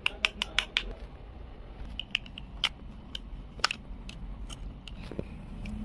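Light clicks and taps of plastic toy kitchen pieces: a plastic toy knife cutting at a plastic toy corn cob in a plastic bowl. There is a quick run of clicks at the start, then single taps spaced out.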